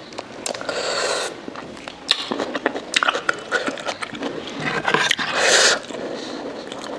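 Close-miked mukbang eating sounds: biting and chewing a fresh tomato slice, with wet mouth clicks and smacks. Near the end a soup spoon scrapes and dips through the thick momo soup in the bowl, the loudest being a short wet rush a little after halfway.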